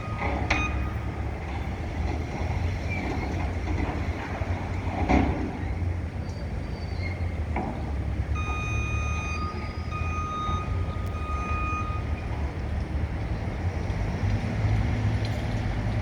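Construction site din: a steady low rumble of heavy machinery, with a vehicle's backup alarm beeping in repeated runs about a third of the way in and again in the middle, and a few sharp clanks.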